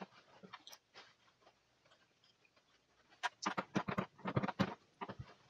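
A few light clicks, then a quick run of sharp clicks and taps about three seconds in: screws and the TV's plastic casing being handled as the set is put back together.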